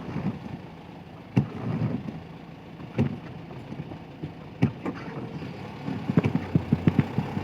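Sharp knocks about every second and a half, then a quick run of knocks near the end, over a low steady engine rumble.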